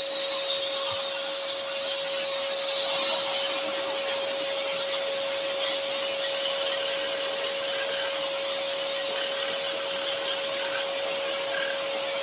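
Axminster Trade AT406SS scroll saw running steadily, its modified-geometry blade cutting curves in a thin wooden panel. A constant hum sits under a high hiss.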